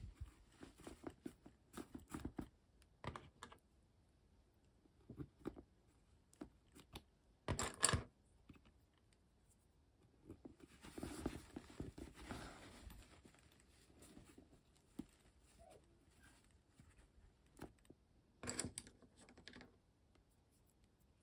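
Quiet handling of thick vinyl: crinkling and rustling as the seam is folded and pinched by hand, with scattered small clicks of plastic sewing clips being fastened on the edge. A few short, louder bursts of handling noise stand out, one at about eight seconds in and another near the end.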